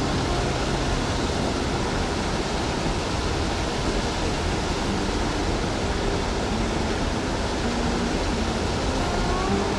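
Water pouring over a small spillway, a steady rushing roar without letup.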